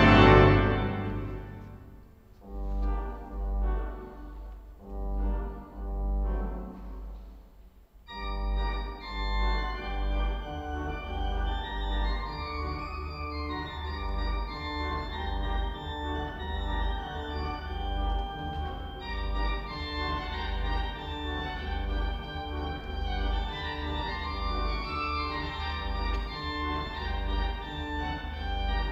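Kuhn pipe organ playing an improvisation. A loud full chord at the start dies away over about two seconds, leaving soft low pedal notes; about eight seconds in, a new sustained chordal passage with moving upper lines begins and carries on at a steady level.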